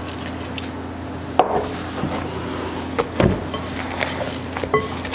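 A few sharp knocks and clatters of kitchen utensils and containers being handled, over a steady low hum.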